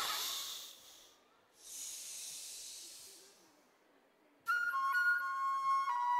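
Recorded music: the song fades out, a soft airy hiss swells and dies away, and about four and a half seconds in a flute melody starts with clear held notes stepping between pitches.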